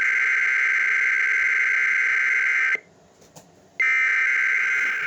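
Emergency Alert System SAME header data bursts over NOAA Weather Radio: a loud, harsh, steady digital screech that breaks off for about a second near the middle and then starts again. This is the coded header that opens a Required Weekly Test.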